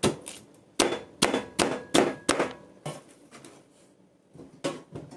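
Chinese cleaver chopping through a corn cob and striking a plastic cutting board: a quick run of about seven sharp chops in the first three seconds, then one more near the end.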